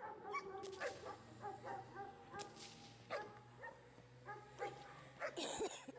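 Young Giant Schnauzer in protection training giving a rapid string of short, high-pitched barks and whines, about two or three a second, as it is held on the leash while the helper moves in front of it. A louder, brief noisy burst comes near the end.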